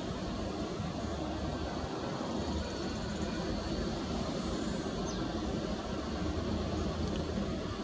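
Boeing 737 MAX's CFM LEAP-1B jet engines running at low taxi power as the airliner turns on the runway: a steady rumble with a faint high whine.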